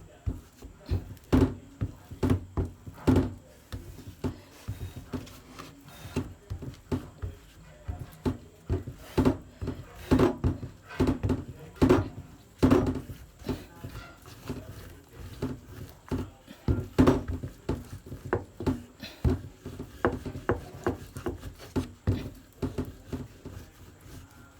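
Irregular wooden knocks and thuds on a chopping board, about one or two a second, from working a hardening slab of caramelised sugar and peanuts flat and into pieces.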